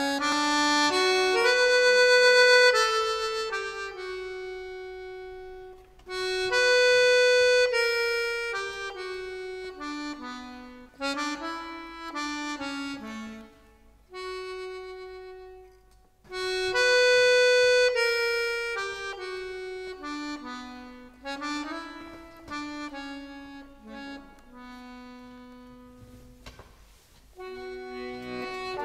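Background music: a slow melody on a reedy instrument, in phrases that swell and fade, with the same loud phrase opening twice.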